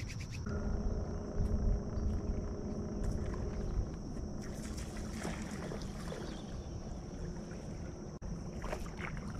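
Low rumbling noise of a small fishing boat out on the river, with a steady high-pitched insect drone over it.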